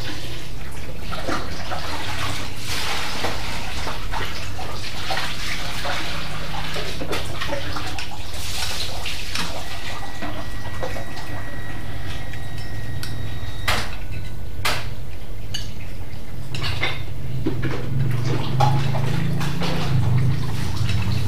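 Forks and spoons clicking against bowls while noodles and broth are slurped from them, with a steady low hum underneath.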